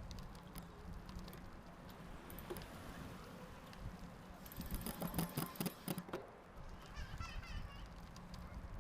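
Rear mechanical disc brake on a 2020 Kona Rove applied at medium speed. It gives a loud, rapidly pulsing honking judder for about a second and a half midway, over steady rolling noise. The rider feels it as the pads skipping over the rotor's holes; the shop calls it normal for mechanical disc brakes.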